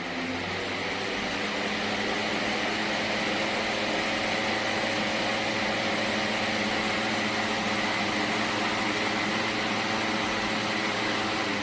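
PELONIS 20-inch box fan running: a steady rush of moving air over a hum of low, even tones from the motor and blades. It swells over the first couple of seconds, then holds steady.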